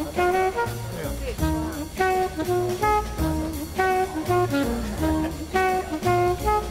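Instrumental jazz-style music with a horn melody over a steady beat.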